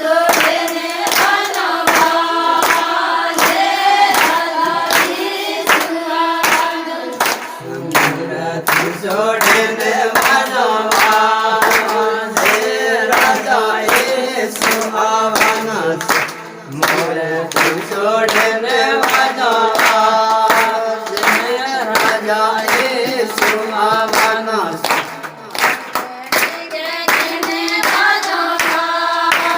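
A devotional song sung by a group of voices, with steady hand clapping about twice a second keeping the beat.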